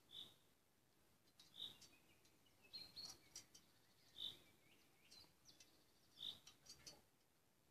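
Faint quiet outdoors: a bird repeats a short, high single note every two seconds or so, while a small dog's claws click and tap lightly on the rungs of a metal ladder as it climbs.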